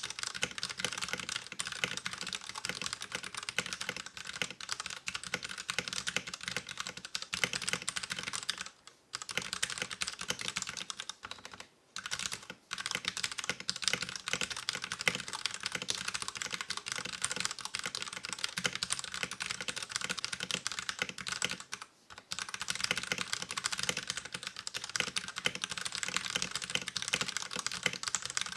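Fast, continuous typing on a plastic-cased, metal-plate mechanical keyboard with stock 60g Akko Purple linear switches and thin ABS keycaps, the keystrokes running together into a steady clatter. It stops for brief pauses about nine, twelve and twenty-two seconds in.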